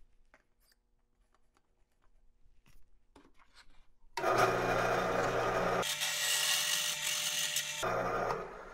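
Drill press driving a 1/2-inch twist drill through a 1/4-inch pilot hole in 1/4-inch steel bar. About four seconds in, the bit bites and cuts steadily for about three and a half seconds, changing in tone about six seconds in, then quiets near the end. The pilot hole lets it cut through quickly.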